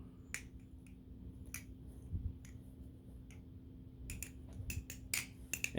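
NRB Konig balisong (butterfly knife) being flipped, its handles and blade clicking against each other as it opens and closes. A few scattered clicks come first, then a quicker run of clicks in the last second and a half.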